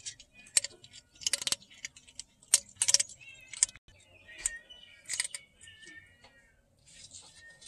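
A cat eating dry kibble inside an old jar: irregular sharp crunches and clinks as the pellets are bitten and knock about in the jar, loudest over the first few seconds.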